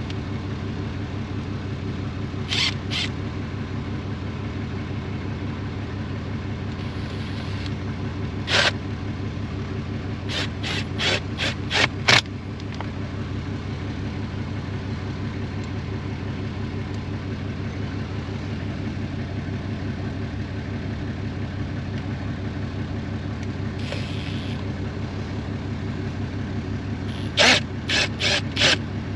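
Ram 2500 pickup's engine idling steadily, with sharp plastic clicks and snaps as the steering-column trim cover is pressed into place: a pair early on, about five in quick succession around a third of the way in, and another quick run near the end.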